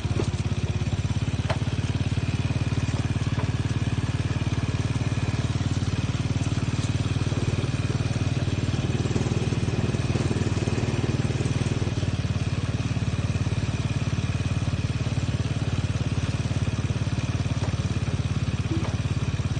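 Small motorcycle engine of a saleng (Thai motorcycle with side cart) running steadily, its rapid firing pulses even throughout.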